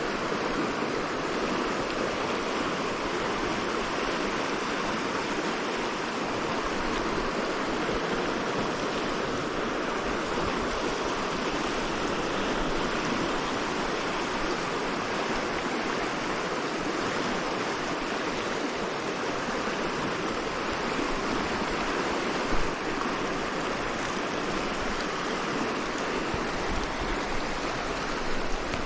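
Shallow rocky river rushing steadily over riffles and small rapids, with one brief knock about three-quarters of the way through.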